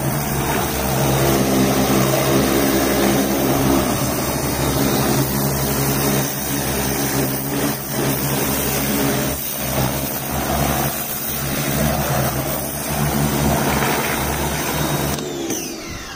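Sun Joe electric pressure washer running, its motor and pump humming steadily while the jet hisses against a car tyre and wheel. Near the end the motor winds down and stops.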